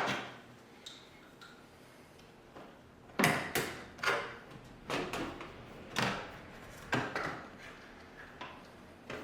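Plastic kickplate of a Bosch dishwasher being levered up with a flathead screwdriver. It gives a series of sharp clicks and knocks, roughly once a second, from about three seconds in.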